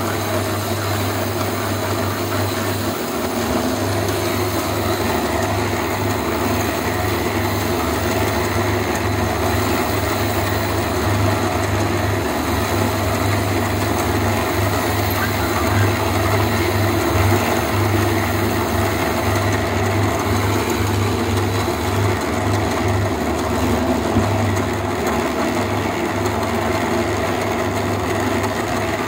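Electric concrete mixer running with a steady motor hum.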